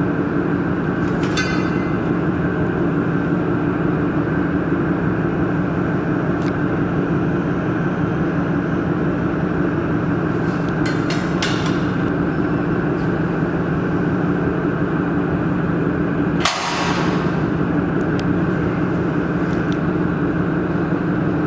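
Steady mechanical hum of running machinery, with a few light clicks and one sharper knock about three quarters of the way through.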